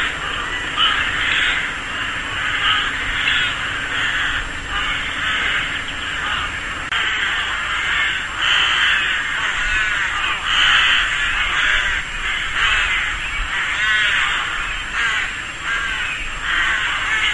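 A rook colony calling: many rooks cawing at once in a continuous chorus of harsh, overlapping caws with no pause.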